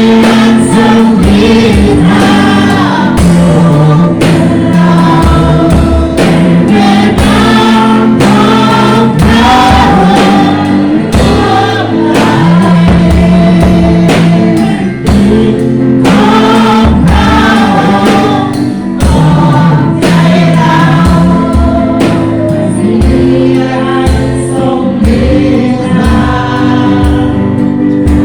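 Group worship singing of a Christian praise song, voices together over a band with bass and drum kit keeping a steady beat.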